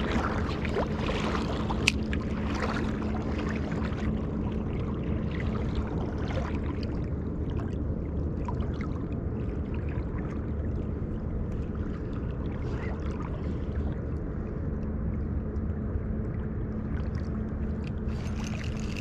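River water rushing steadily over rocks, with a couple of sharp clicks about two seconds in.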